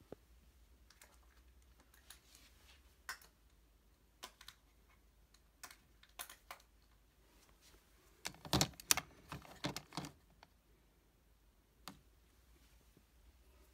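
Plastic makeup compacts clicking and clattering as they are set into a plastic drawer organizer: scattered light clicks, with a louder run of clatter about eight to ten seconds in.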